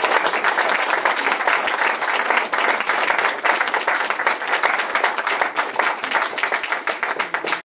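A small crowd applauding: dense, steady clapping that cuts off abruptly near the end.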